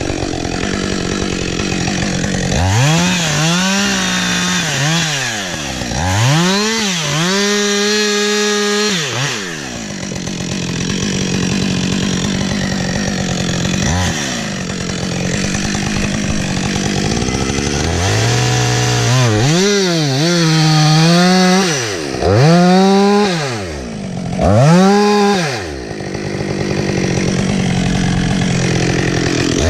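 Two-stroke chainsaw revved again and again from idle to full throttle and back, each rise and fall lasting a second or two. It idles steadily through a stretch in the middle and again near the end.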